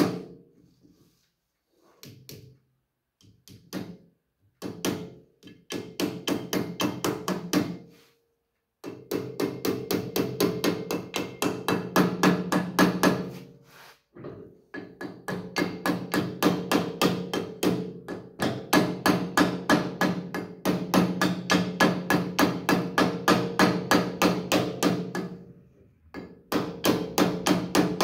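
Hammer tapping a new oil seal into a John Deere 4440 PTO bearing quill: quick light strikes, about four a second, in several runs with short pauses, working around the seal to drive it in evenly. The steel quill rings under each run of taps.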